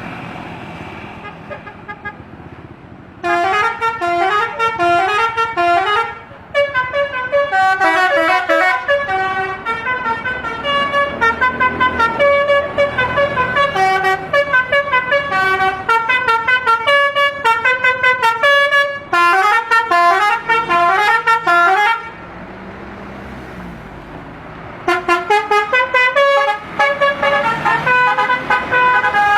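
Basuri 'telolet' musical air horn playing quick melodic runs of notes, sounded over and over. Low traffic or engine noise comes first. The horn starts about three seconds in, pauses for a few seconds near the end, then plays again.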